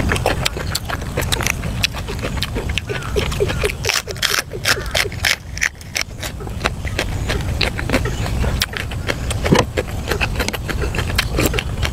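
Close-miked chewing and crunching of food, many quick sharp crunches as raw long bean is bitten and chewed, over a steady low rumble.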